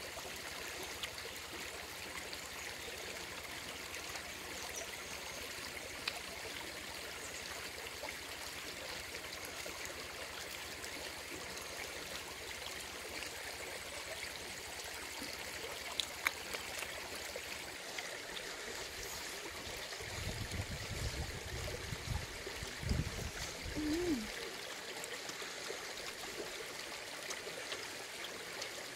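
Small stream running steadily, a constant babble of flowing water, with a few low rumbles about two-thirds of the way through.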